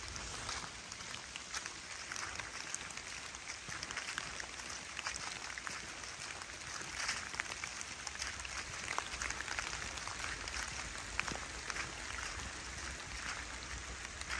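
Rain falling in a forest onto trees and a floor of fallen leaves: a steady hiss with many separate drops ticking.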